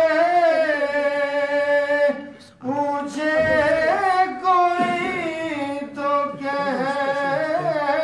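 A man singing a naat, an Urdu devotional poem, solo and without instruments. He holds long notes with ornamented turns of pitch and pauses briefly for breath about two and a half seconds in.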